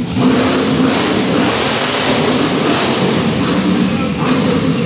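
A monster truck's engine running loud as the truck drives.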